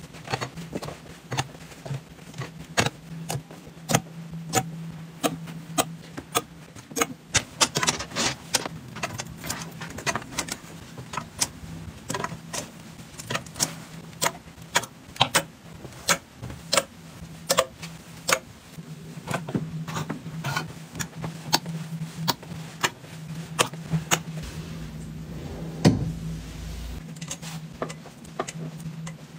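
Clothes hangers clicking and clacking against a metal closet rail as garments are hung up, many separate sharp clicks, with one louder knock near the end. A steady low hum runs underneath.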